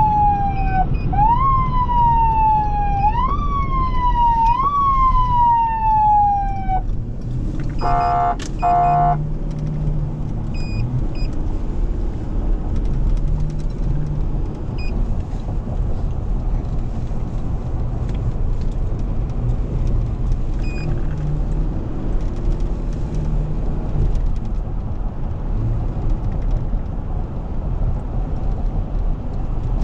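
Emergency-vehicle electronic siren, repeatedly jumping up in pitch and sliding down, about once every second and a half. It cuts off about seven seconds in and is followed by two short horn blasts. After that there is only the steady low rumble of the vehicle running on the road.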